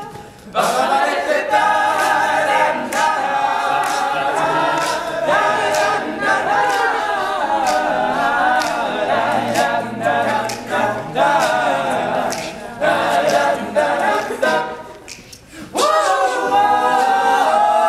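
All-male a cappella group singing a passage without words, voices in harmony over a sharp beat. The singing drops away briefly about fifteen seconds in, then comes back.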